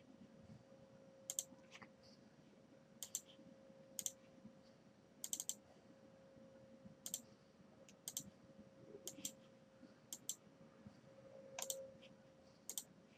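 Scattered, irregular clicks of computer keys and a mouse, about a dozen single clicks and short runs, over a faint steady hum.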